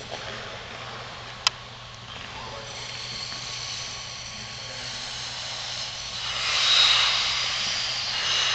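Figure skates' blades hissing and scraping on rink ice over a steady background rumble. The scrape swells to its loudest about six to seven seconds in as the pair slow to a stop. A single sharp click about a second and a half in.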